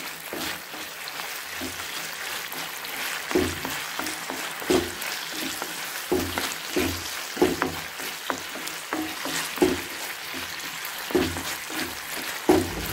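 Capsicum, onion and cashews stir-frying on high heat in a thick sauce: a steady sizzle. From about three seconds in, a wooden spatula scrapes and knocks against the pan roughly once a second.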